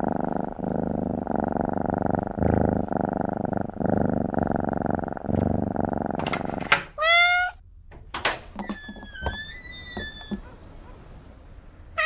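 A cat purring steadily for about six seconds, then a meow. A few clicks and a thin, drawn-out squeak follow, and there is another meow right at the end.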